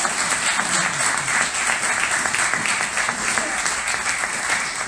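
Audience applauding with steady, dense clapping.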